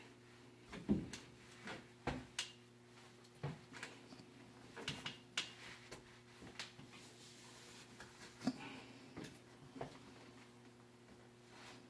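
Scattered light knocks and clicks from a wheeled walker's frame and shoes on a wood floor as a man in knee braces takes slow assisted steps, over a steady low hum.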